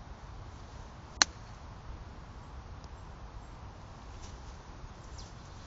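A golf iron striking the ball on a short chip shot near the green: one sharp click about a second in. A low steady rumble runs underneath.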